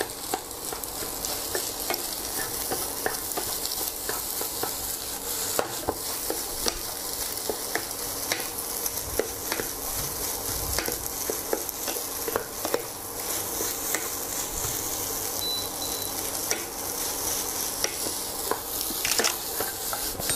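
Rice and egg sizzling in hot oil in a nonstick wok, stir-fried with a wooden spatula that scrapes and knocks against the pan in frequent short clicks. Near the end the pan is tossed.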